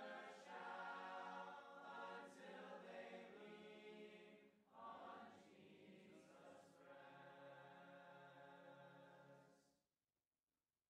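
Group of voices singing the closing line of a hymn a cappella in four-part harmony, faint and sustained, with a short break between phrases midway; the singing ends about ten seconds in.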